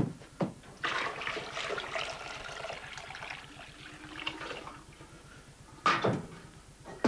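Water poured from a copper kettle into a pot for about three and a half seconds, with clanks of the copper vessels at the start and again near the end.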